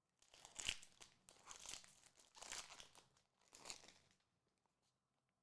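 Crinkling and rustling of Pokémon card packaging and cards being handled, in about four short bursts over the first four seconds.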